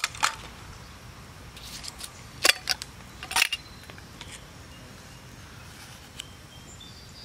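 A few sharp clicks and knocks as a metal jar lid is taken off and set down on a wooden plank, the loudest about two and a half and three and a half seconds in, over a low outdoor background.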